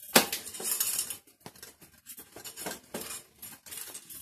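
Irregular metallic clicks and clinks from bicycle drivetrain parts being worked by hand during a front derailleur adjustment, with one sharp loud click just after the start.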